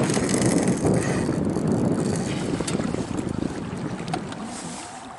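Wind rushing over the microphone and water washing past a moving kayak's hull, a steady rush with no engine tone that fades gradually over the last couple of seconds.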